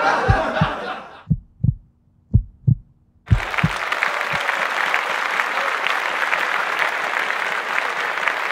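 Heartbeat sound effect: low thumps in lub-dub pairs about once a second. About three seconds in, applause starts suddenly and keeps going.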